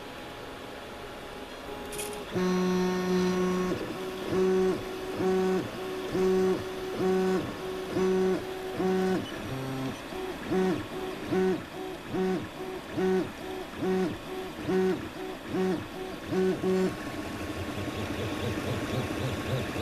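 Stepper motors of an Anet A8 3D printer driving the print head back and forth: a string of short, steady humming tones all at one pitch, starting a couple of seconds in, at first roughly one a second, then shorter and quicker after about ten seconds.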